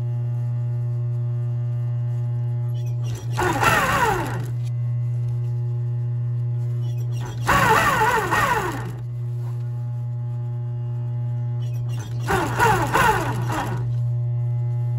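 Industrial sewing machine with its motor humming steadily, starting up three times for short runs of stitching through leather, each a second or so long and about four seconds apart.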